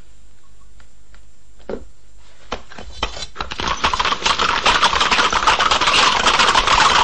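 Hooves of several galloping horses: a clatter that starts with scattered clicks about two and a half seconds in and quickly builds to a loud, dense, continuous run.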